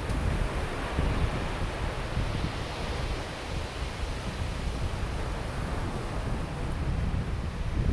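Ocean waves washing onto a sandy beach, a steady surf wash that swells and eases, with wind rumbling on the microphone.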